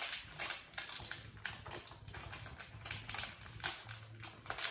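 A pregnancy test's plastic wrapper crinkling and crackling in the hands as it is torn open, in quick irregular crackles.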